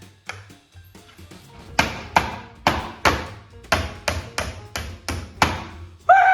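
Hammer driving a nail into half-inch plywood: a run of about nine sharp strikes, roughly two a second, after a few lighter taps. Near the end comes a short falling tone.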